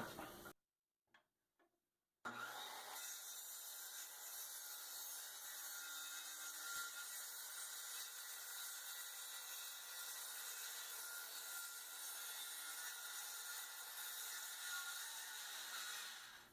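Saw running steadily through a sheet of plywood, fairly quiet and even, starting about two seconds in after a brief dead gap and stopping just before the end.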